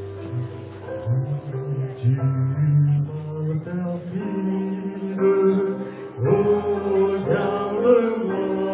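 Slow music of long held chords over a steady low bass, the notes changing every second or so.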